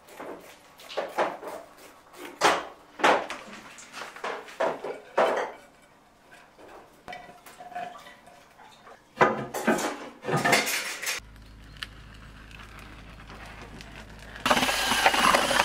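Scissors snipping and hand tools clinking against clay bricks, a sharp sound about every half second. Near the end, a wheelbarrow loaded with hollow clay bricks rattles as it is pushed along.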